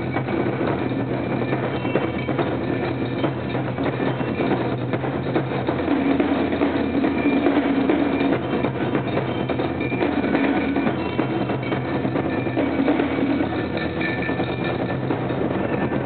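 A drum ensemble playing large red barrel drums together in a dense, driving rhythm that keeps going without a break.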